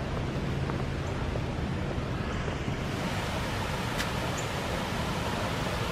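Steady outdoor rushing noise with no voices, turning brighter and hissier about three seconds in. A faint low hum underlies the first couple of seconds, and a single small click comes near four seconds.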